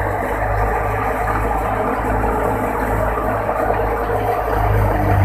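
Tractor engine running steadily, driving a wheat thresher: a constant low drone with a dense mechanical noise over it.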